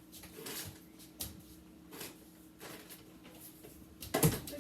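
Household handling noises: scattered light knocks and rustles over a faint steady hum, with a louder thump about four seconds in.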